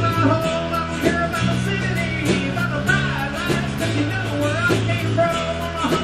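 Background rock music with guitar and a steady beat.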